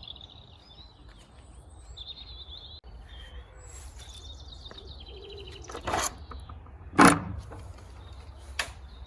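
Songbirds chirping and trilling over a low background rumble, with two sharp knocks about six and seven seconds in, the second one the loudest.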